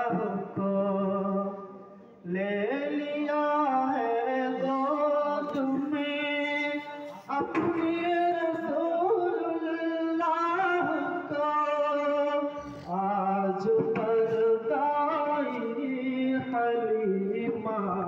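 Background vocal music: a voice singing a devotional song (naat) in long, held, ornamented phrases, with brief breaths between the lines.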